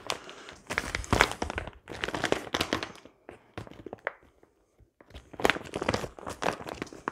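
Thick plastic MRE outer pouch crinkling and crackling in several bursts as it is pulled and twisted by hand in a failed attempt to tear it open.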